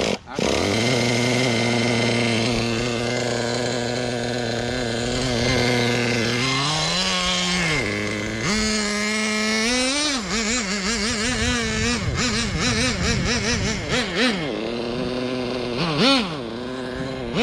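Traxxas Jato 3.3 nitro RC car's two-stroke glow engine running. It cuts out for a moment right at the start, then idles steadily for several seconds. It then revs up and down in quick throttle blips as the car drives off.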